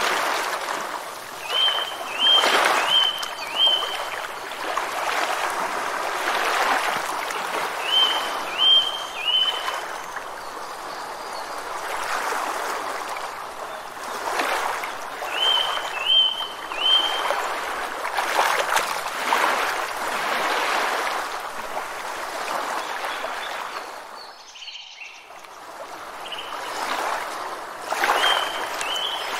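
Rushing water that swells and eases every few seconds, with a bird calling several times in short runs of three or four quick, identical high chirps. The water noise drops away briefly about three-quarters of the way through.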